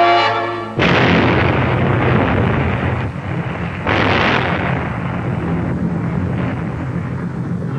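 Atomic bomb blast on an old film soundtrack. A brass chord is cut off by a sudden loud explosion about a second in. A second burst comes about four seconds in, then a long rumble that slowly fades.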